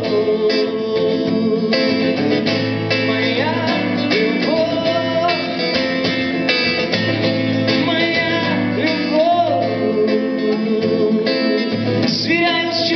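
Acoustic guitar playing an instrumental break between verses of a song, with a melody line sliding up and down in pitch over the chords.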